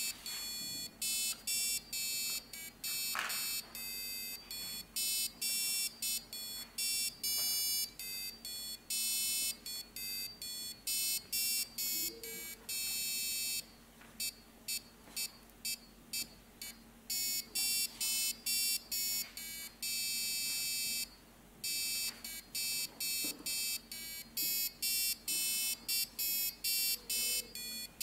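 Piezo buzzer driven by an Arduino, beeping out a quick series of high-pitched notes that change in pitch and length, like a simple tune, with short gaps between them.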